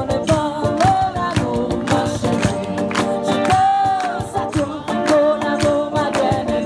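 Live acoustic band: strummed acoustic guitars over a steady beat on a cajon, with a woman singing and holding one long note about halfway through.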